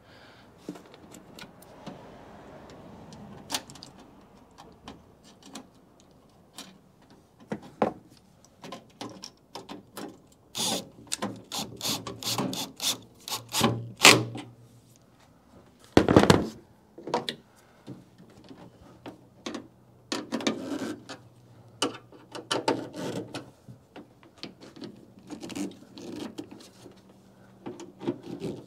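Irregular clicks, taps and rubbing from handling a hood bug deflector and its fittings against the truck, with one heavier knock about sixteen seconds in.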